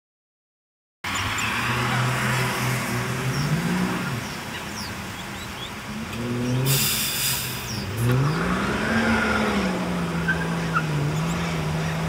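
Road traffic: car engines running and accelerating, their pitch rising and falling, starting abruptly about a second in. A short harsh hiss about seven seconds in, with faint small bird chirps.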